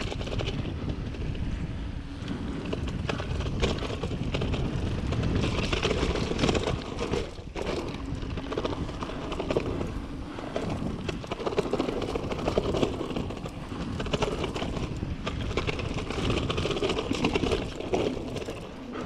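Mountain bike rolling along a dirt trail: tyres on the packed dirt with a steady run of small rattles and knocks from the bike over the bumps.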